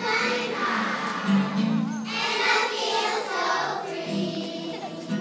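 Children's choir of first graders singing together, with steady accompaniment underneath.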